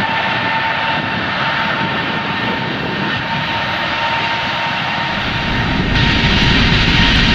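Jet airliner engines heard from inside the cabin: a steady rushing noise with a thin whine. About five seconds in, a deeper rumble joins and it grows louder, like the engines spooling up.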